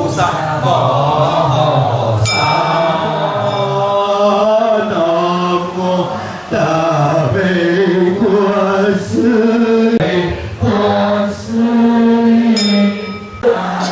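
A group of voices chanting a prayer liturgy in unison, led over microphones. The chant is slow and drawn out, on sustained, gliding pitches.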